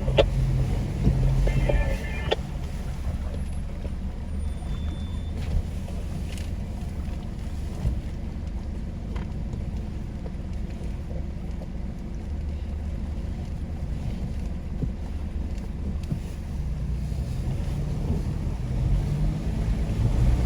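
Four-wheel-drive vehicle engine running at low revs, a steady low rumble.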